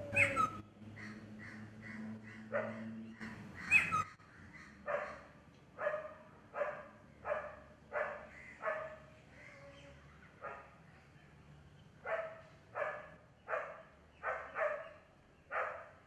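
A dog barking over and over, a short bark about every two-thirds of a second from about five seconds in, with a pause in the middle. Two sharper, higher calls come before the barking, one at the very start and one just before it begins.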